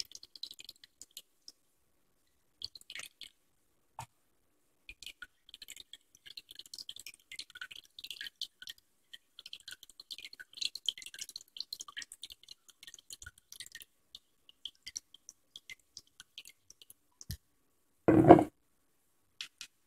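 Red wine vinegar trickling from a bottle into a plastic measuring cup: a faint, irregular patter of small drips and splashes. Near the end comes one short, louder bump.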